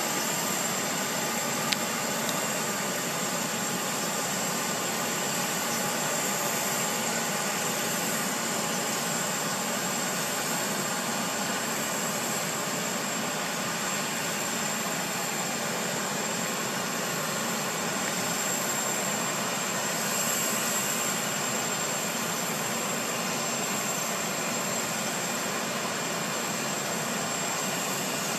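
Steady turbine whine with a high, constant whistle from a UH-60JA helicopter standing with its main rotor still, before the rotor turns. A single brief click about two seconds in.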